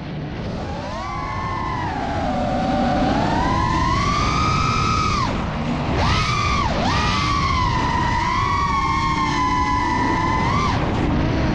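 FPV quadcopter's electric motors and propellers whining, the pitch rising and falling with the throttle. It grows louder over the first few seconds and dips sharply twice around the middle.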